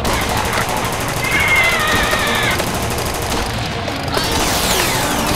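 Rapid machine-gun fire sound effects, one continuous burst of shots, laid over toy-blaster play with background music. About a second in, a wavering electronic tone rises above the shots, and near the end several quick falling whistles sweep down.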